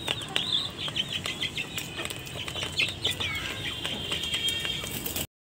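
Young chickens peeping and cheeping as they feed, with a steady patter of sharp clicks from beaks pecking grain off a steel plate. The sound cuts off suddenly near the end.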